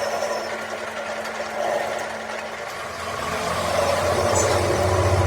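A machine's motor starting up about three seconds in, its low hum rising in pitch and growing louder as it comes up to speed, over a steady mechanical noise.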